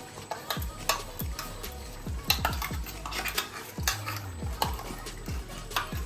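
A metal spoon clinks and scrapes against a steel mixer-grinder jar and a pan as thick paste is scraped out and stirred in. Background music with a deep beat plays throughout.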